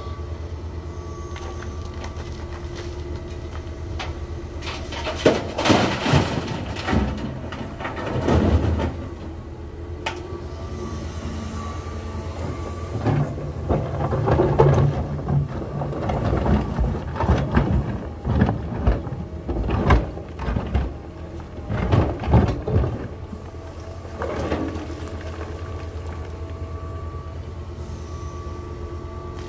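John Deere 350G excavator's diesel engine running steadily, with the engine and hydraulics working harder while the bucket digs. Several spells of crashing and scraping as the steel bucket bites into broken rock and stones tumble out of it.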